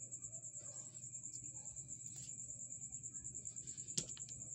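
Crickets chirping in a steady, rapidly pulsing high trill. A single sharp click about four seconds in comes from the stones being handled.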